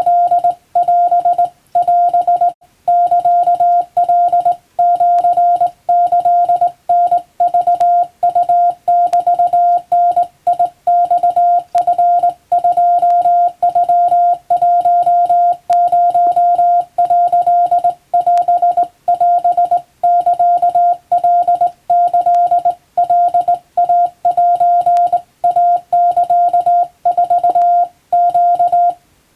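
Hand-keyed Japanese wabun Morse code: a single steady beep switched on and off in quick dots and dashes, with short pauses between characters.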